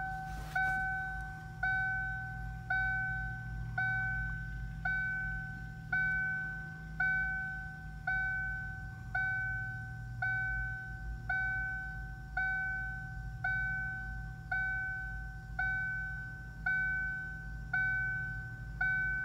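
A 1994 Ford Mustang GT's dashboard warning chime dinging about once a second with the key on. Each ding is a clear electronic tone that fades before the next, over a low steady hum.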